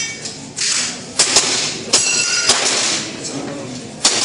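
Pistol fired in an IPSC stage string: about five sharp shots, the first two close together and the last near the end, with a ringing tone after one of them.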